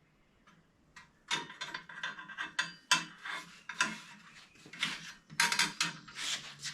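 Steel bicycle fender clanking and rattling against the fork as it is held up and test-fitted on the front wheel: quick, irregular metallic knocks that start about a second in and run in a busy cluster until near the end.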